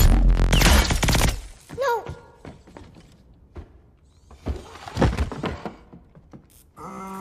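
Film sound effects: a sci-fi energy-weapon blast striking a man with a crackle of sparks and impact, loudest in the first second and a half. A second heavy impact thud comes about five seconds in.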